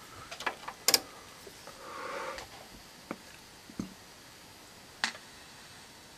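A few light clicks and taps from handling test gear and probe leads, over a faint steady hiss, with a soft swell about two seconds in.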